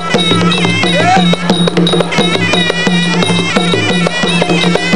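Traditional Khmer boxing ring music: a sralai reed pipe playing a wavering, ornamented melody over a steady drone, with skor drums keeping a regular beat.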